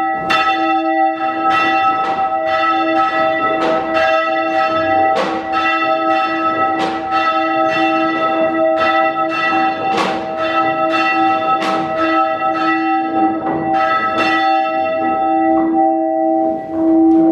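Church bell rung in a steady rhythm, a little more than one stroke a second, each stroke ringing on into the next.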